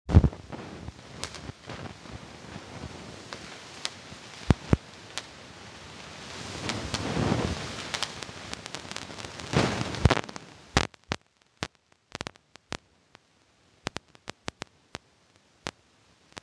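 New Year's fireworks and firecrackers banging, heard muffled through a finger held over the microphone, with the rubbing and scraping of the finger on the mic. The rubbing swells twice near the middle, and after about eleven seconds only scattered sharp bangs are left over near silence.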